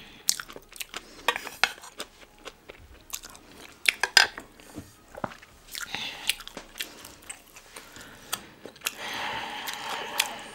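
Close-miked mukbang eating sounds: chewing and crunching food, with many sharp mouth clicks and a denser, noisier stretch lasting about a second near the end.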